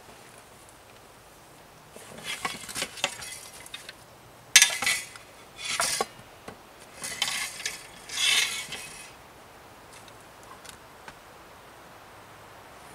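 Gear being handled and shifted on a log bench: a run of short rustles with light metallic clinks, the loudest a sharp clack about four and a half seconds in, then quiet after about nine seconds.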